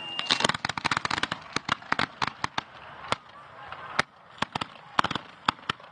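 Fireworks going off as a rapid run of sharp cracks and pops, packed tightly in the first second and a half, then thinning to scattered single reports.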